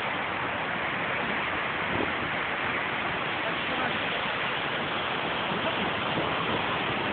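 Steady rush of a rocky mountain stream, white water tumbling over stones in a small cascade.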